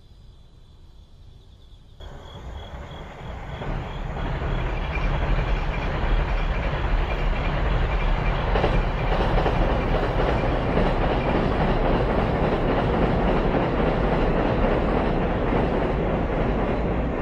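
Electric passenger train running past on the line: the steady rumble of its wheels on the rails comes in suddenly about two seconds in, builds over a few seconds, then holds.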